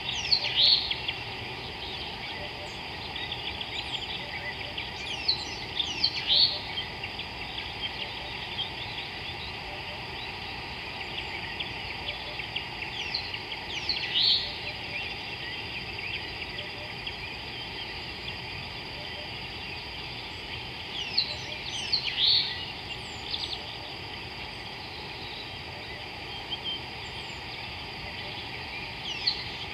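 Wild birds calling in African bush: a loud burst of falling, high-pitched calls comes back about every seven or eight seconds, four times over, above a steady high drone and a faint chatter of other birds.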